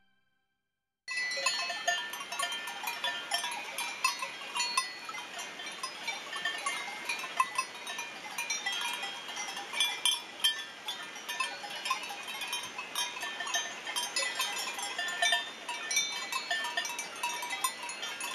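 Bells on grazing goats clanking and ringing irregularly, many small bells overlapping, starting about a second in.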